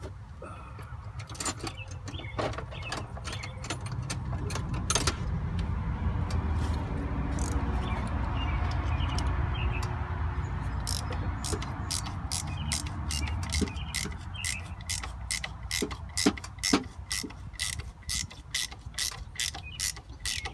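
Hand ratchet wrench clicking in quick, even strokes, about three a second, from about halfway in, as a bolt is turned on the tractor's air conditioning compressor. Before that come scattered clinks of tools under a low rumble.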